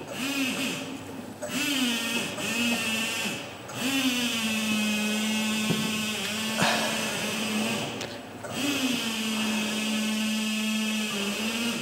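Electric forklift motor whining in runs, stopping and restarting three times with a short upward slide in pitch at each start, then holding a steady tone.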